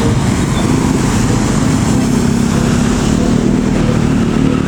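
Road traffic noise: the steady rumble of passing vehicles, with a heavy vehicle's engine drone building from about a second and a half in.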